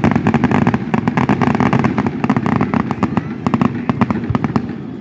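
Aerial fireworks crackling: a dense, irregular run of sharp pops from a burst of crackling stars, dying away near the end.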